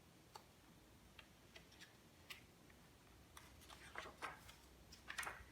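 Faint handling of a picture book's pages: scattered light clicks, with a brief rustle about four seconds in and again near the end.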